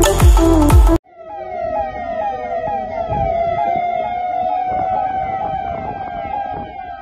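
Music cuts off abruptly about a second in, and an electronic siren takes over, wailing in fast repeating sweeps over a steady tone.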